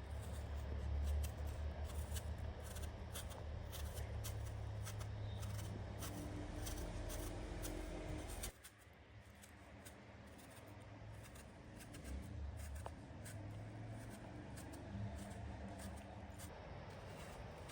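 Small rustling and clicking handling noises over a low rumble; the rumble cuts off suddenly about eight and a half seconds in, leaving fainter rustles and clicks.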